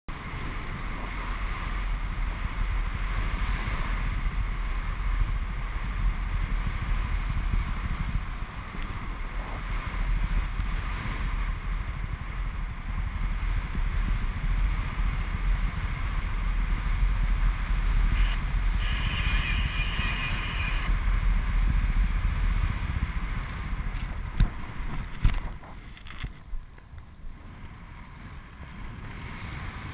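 Wind rushing over the microphone in paragliding flight: a steady low buffeting rumble that eases near the end, with a brief higher tone about two-thirds through and a few sharp knocks shortly before it eases.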